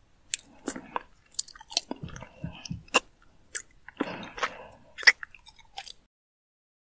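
Persian cat grooming, licking its paw to wash its face: a string of quick, wet licks and mouth smacks that stop about six seconds in.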